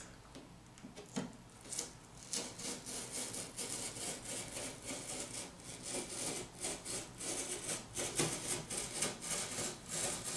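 Box cutter blade slicing through corrugated cardboard, a dense run of short scratchy strokes that starts about two seconds in.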